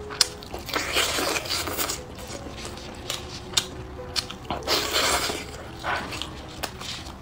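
Close-up eating sounds of biting and chewing braised pork knuckle, its meat and gelatinous skin: irregular sharp clicks with a few longer noisy stretches, about a second in and again near five seconds.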